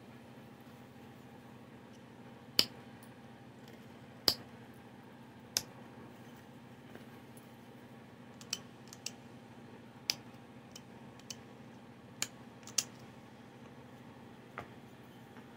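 Antler billet striking the edge of a stone Clovis point preform held in a leather pad: about a dozen sharp clicks at irregular intervals as flakes are driven off, the two loudest a few seconds in.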